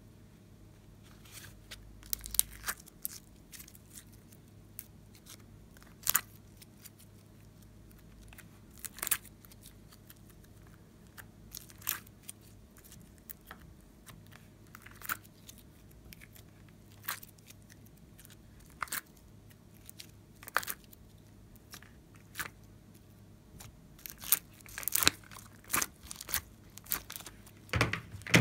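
Slime popping and crackling as soft blocks are pushed out of a plastic ice cube tray and pressed into a glass dish of glitter and slime. Short sticky clicks come a second or two apart and grow busier near the end as a handful is squeezed.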